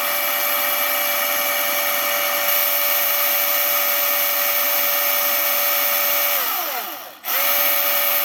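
Milwaukee M18 Fuel battery chainsaw running at full speed with no load, a steady high motor and chain whine. It is the 30-second free run the instructions call for after filling the bar-and-chain oil, to get oil onto the bar and chain. About six and a half seconds in the trigger is let go and the whine winds down to a brief stop, then it snaps straight back up to full speed.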